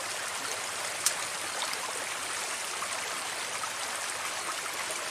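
Water running steadily in a narrow ditch, a constant even flow. A single sharp click about a second in.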